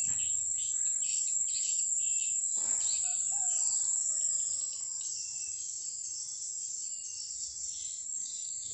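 Steady high-pitched insect chorus from the streamside forest, with a pulsing layer that eases about four and a half seconds in. A few faint bird calls come about three to four seconds in.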